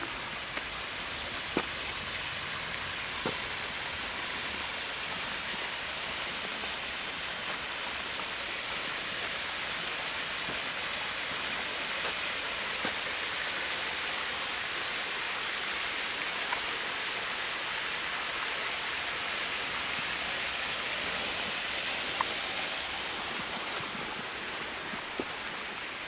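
Small shallow forest stream running with a steady babbling rush, with a few faint clicks scattered through.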